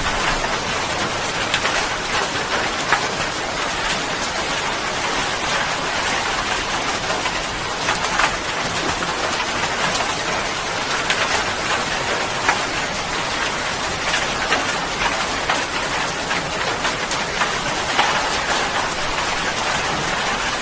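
Steady rain falling, an even hiss with scattered close drops tapping on a surface.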